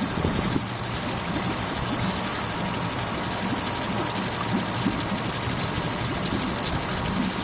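Boat motor running steadily at low speed, a constant low hum under a steady hiss of wind and water.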